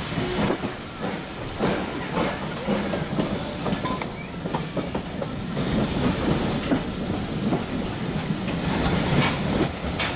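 Steam-hauled passenger train running on the rails, its carriage wheels clicking and knocking over the rail joints over a steady rumble.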